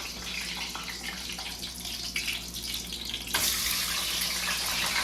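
Potato fries sizzling and crackling in hot cooking oil, the sizzle getting louder about three seconds in.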